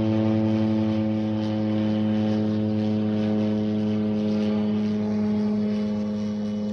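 Single-engine floatplane flying overhead, coming in to land. Its piston engine and propeller give a steady drone that holds one even pitch.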